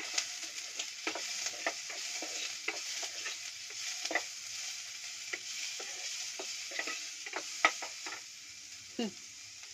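Ginger frying in a little hot, smoking oil in a pot, sizzling steadily while a spoon stirs it, with frequent short scrapes and taps of the spoon against the pot. The sizzle eases off for the last second or so.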